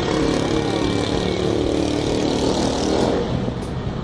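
Street traffic: a motor vehicle's engine passing, its pitch sliding as it goes by, over a steady rush of traffic noise.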